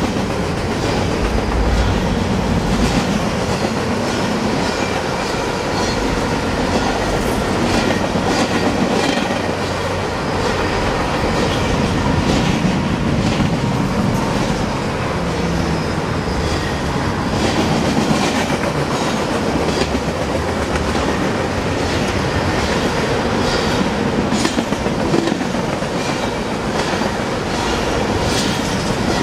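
Freight train cars, autoracks and then tank cars, rolling past at steady speed: a continuous rumble of steel wheels on rail with a running clickety-clack of sharp, irregular clicks as the wheels cross rail joints.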